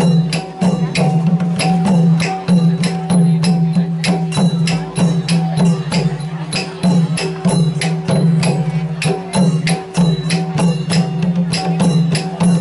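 Thai folk music with a steady low drone and a fast, even beat of sharp percussion strikes, about four a second.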